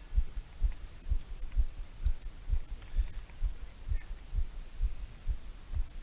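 Steady, muffled low thumping, about two beats a second, picked up through a chest-mounted action camera.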